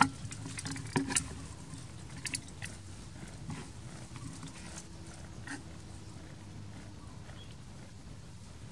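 Cat purring steadily as a kitten nurses, with a few sharp rustles of dry leaves, the loudest right at the start and about a second in.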